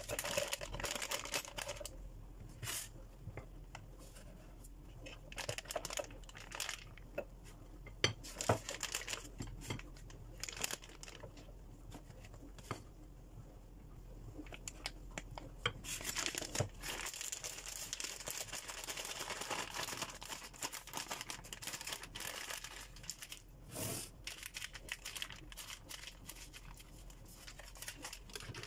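Disposable plastic piping bag crinkling and rustling in the hands as it is opened and filled with meringue. The crackling comes in irregular bouts, busiest at the start and again about two-thirds of the way through.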